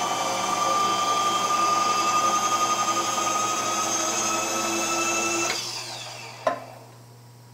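Milling machine running with a steady whine, switched off about five and a half seconds in and spinning down, its pitch falling as it fades. A sharp click comes about a second later.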